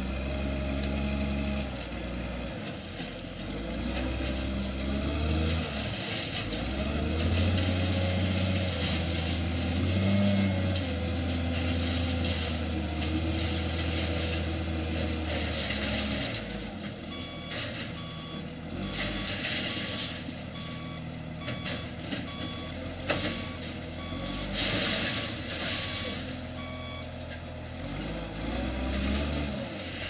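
Caterpillar wheel loader's diesel engine running under load, its pitch rising and falling as it works. From about halfway its reversing alarm beeps about once a second while it backs up, with scattered knocks.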